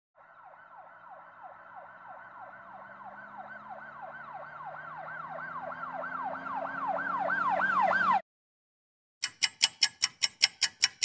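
Emergency-vehicle siren sound effect in a fast yelp, about three sweeps a second, growing louder for about eight seconds and then cutting off suddenly. After a second's gap comes a quick run of sharp ticks, about five a second, for a couple of seconds.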